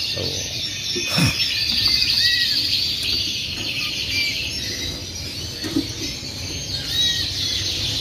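Many caged canaries chirping and singing together in a dense, steady chorus of high trills, with a brief knock about a second in.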